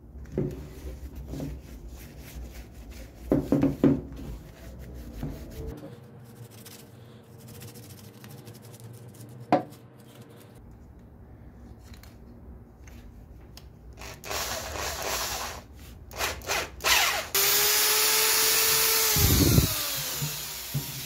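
Cloth rubbing oil into a wooden branch, with soft handling knocks and one sharp knock. Later a cordless drill with a twist bit runs in a few short bursts, then runs steadily for about three seconds and winds down as the trigger is released.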